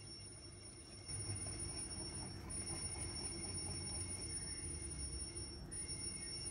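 Wire whisk beating flour into egg and milk batter in a ceramic mixing bowl: a quick, steady run of strokes that starts about a second in.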